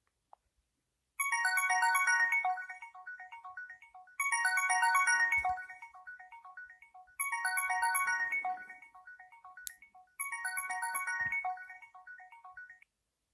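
A ZTE Overture 3 phone ringtone: a short melody of quick, chiming notes that starts about a second in and repeats four times, about every three seconds, each phrase fading away before the next.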